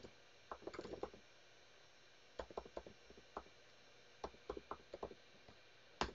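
Computer keyboard being typed on: faint, quick key clicks in a few short bursts with pauses between.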